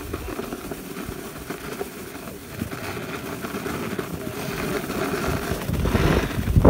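Skis or board scraping and hissing over packed snow on a downhill run, with wind buffeting the microphone; it grows louder near the end.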